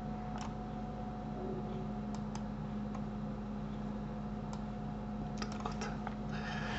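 Sparse clicks of a computer keyboard and mouse: a few single clicks, then a quick run of them near the end, over a steady low hum.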